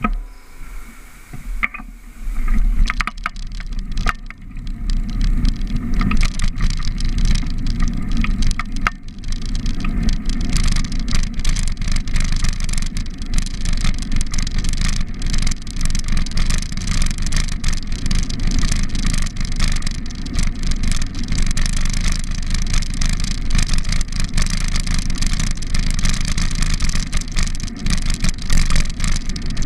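Wind rumble and rattling on a bicycle-mounted camera riding along a road, with car traffic driving past. It is patchy with scattered clicks at first, then from about nine seconds in a steady loud rumble as the ride picks up.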